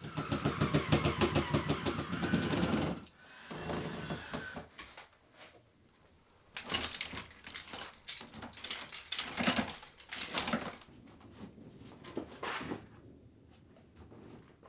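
A power tool running in short bursts, with a fast pulsing motor sound whose pitch dips and rises. The longest and loudest burst is at the start, followed by several shorter ones.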